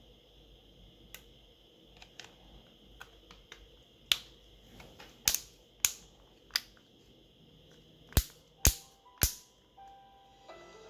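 A series of sharp clicks and snaps from hands working on a smartphone during reassembly. There are small ticks at first, then about seven loud snaps from about four seconds in. A few short, steady beeping tones follow near the end.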